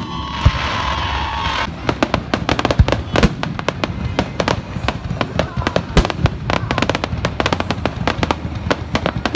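Fireworks display: a steady pitched tone, with the first bangs over it, gives way about two seconds in to dense, rapid crackling and bangs from many shells bursting at once.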